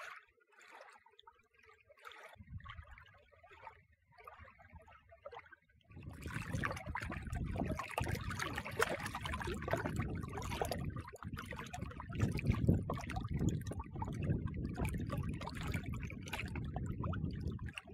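Shallow lake water lapping and trickling over and around a rock. It starts about six seconds in, after a quieter stretch with only faint scattered sounds.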